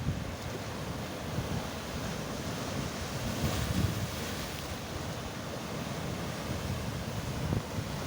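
Atlantic surf breaking and washing on the shore, with one louder surge of rushing water about three and a half seconds in. Wind buffets the microphone throughout.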